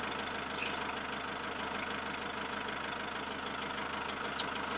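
Perkins 4-108 four-cylinder marine diesel idling steadily, heard close up in the engine compartment.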